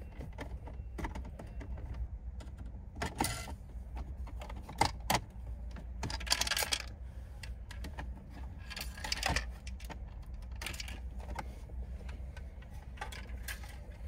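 Plastic interior trim of a Mercedes 190E's centre console clicking and rattling as it is worked loose and handled: a string of irregular clicks and clatters, with short scraping rattles about six and nine seconds in.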